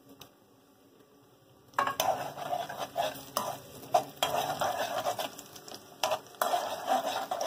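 Steel spoon stirring and scraping cashews and raisins frying in hot ghee in an aluminium kadai, starting about two seconds in: sharp clicks and knocks of the spoon against the pan over a light sizzle. The raisins are frying until they puff up.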